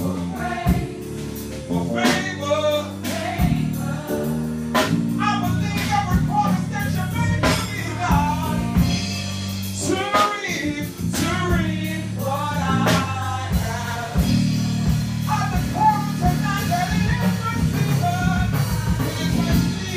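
Live gospel music: singers over a band, with sustained low bass or keyboard notes and regular drum strikes.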